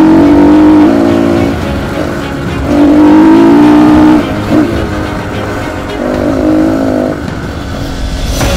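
GTX FSE250R dirt bike engine running on the trail, pulling hard in three surges under throttle and dropping back between them, with background music mixed in.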